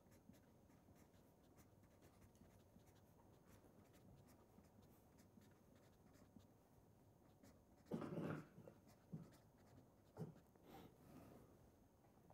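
Faint scratching and ticking of a felt-tip marker writing on paper, with a short breath about eight seconds in.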